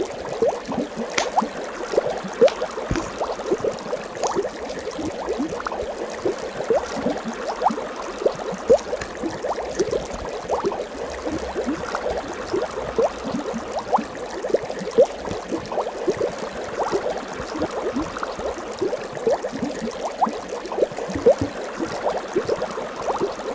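Steady bubbling water: a dense, unbroken stream of small bubble blips, each a short rising note.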